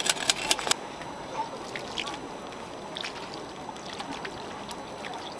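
Rapid scraping strokes of a knife blade across a block of ice, about five or six a second, stopping under a second in. Then water trickling as it is poured from a bottle over the ice slabs, with a few faint clicks.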